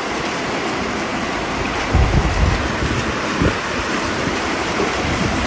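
Heavy rain and strong wind in a storm, a dense steady roar of rain with gusts buffeting the microphone in low surges about two seconds in and again near the end.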